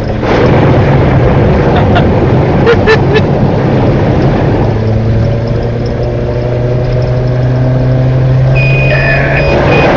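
Old Fiat Panda 4x4's engine running steadily, heard from inside the car, under a constant rush of water against the car as it drives through flood water.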